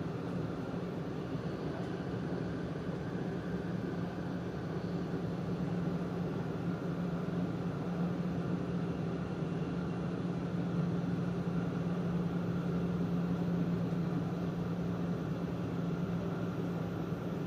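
Running noise heard inside the upper-deck cabin of an E4 series Max double-decker Shinkansen in motion: a steady rush with a low hum that fades out near the end.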